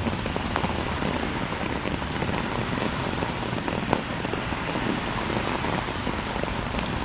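Heavy rain falling: a steady hiss with a few sharp drop taps, the clearest about four seconds in.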